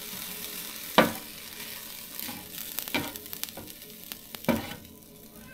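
Food sizzling on a Blackstone flat-top griddle, with three sharp clacks of a utensil on the griddle: about a second in, around three seconds, and near the end.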